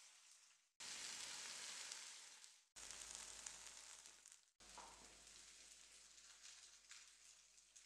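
Faint sizzling of tomato slices frying in a nonstick frying pan on a gas burner. The sizzle breaks off abruptly three times and resumes.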